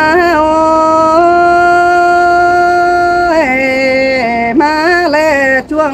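A woman singing solo, unaccompanied: one long held note, then short wavering, ornamented phrases with brief pauses for breath near the end.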